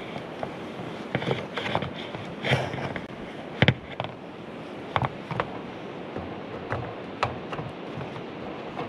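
Caulking gun being squeezed as a bead of sealant is run around a stovepipe roof boot on metal roofing: a series of sharp clicks and knocks from the gun and the hands, the loudest a little under four seconds in, over a steady wind hiss.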